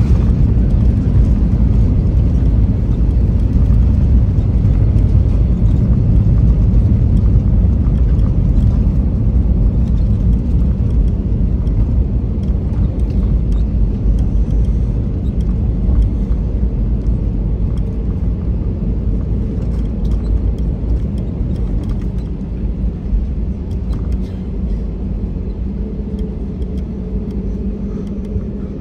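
Inside the cabin of a jet airliner on its landing roll-out with the ground spoilers raised: a loud, steady, deep rumble of the aircraft running down the runway, easing off gradually as it slows. A steady engine hum comes through near the end.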